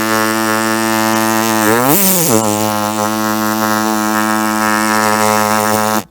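A man's voice making a steady, low, buzzing mechanical drone as a vocal sound effect. Its pitch sweeps up and back down once about two seconds in, like a rev, and it cuts off abruptly near the end.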